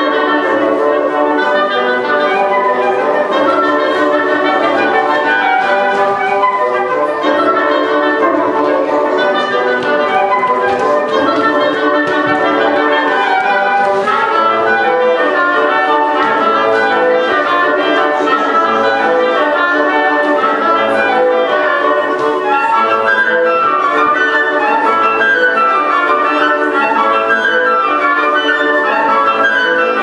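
Woodwind quintet playing a traditional mariachi tune live, the upper woodwinds carrying the melody, standing in for the singers, over a steady rhythmic accompaniment standing in for the guitars.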